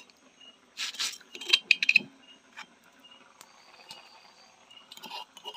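Insects chirping steadily, a short high chirp repeating about every three-quarters of a second over a thin steady high trill. A few clusters of sharp clicks and clinks come about a second in, around two seconds in, and again near the end.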